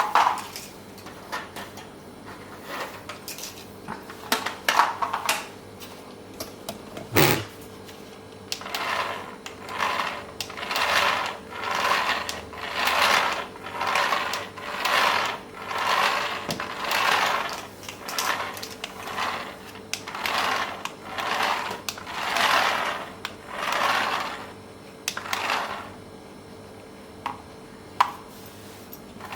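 A small motor whirring in short bursts, about one a second, with a few clicks before and after; in the setting this fits a toy RC car's electric motor being run in spurts.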